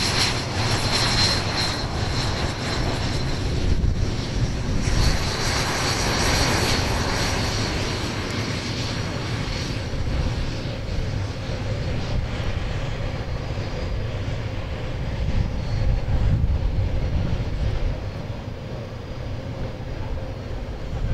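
BAE Hawk Mk.51A jet trainers' Rolls-Royce Turbomeca Adour turbofans running as the jets move on the ground, a steady jet noise with a high whine. The whine is strongest for the first several seconds, then fades to a lower, steady engine noise as the jets taxi.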